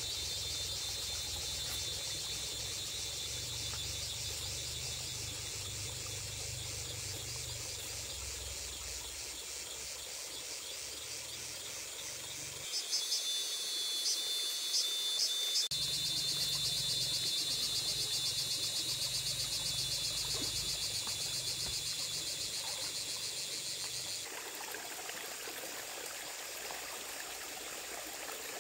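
Insects trilling in a dense, high-pitched chorus over a low rumble. The chorus changes abruptly twice, about thirteen and twenty-four seconds in, and a few sharp clicks come between thirteen and fifteen seconds.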